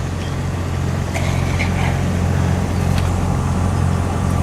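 Car engine running with a steady low hum, with a few light clicks over it.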